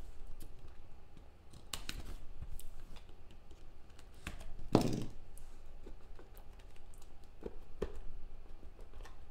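Cardboard card box being handled and worked open: scattered light clicks and scrapes of cardboard, with a louder thump about five seconds in.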